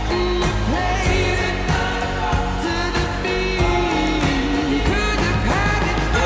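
Pop song with a lead voice singing a melody over a steady beat and bass.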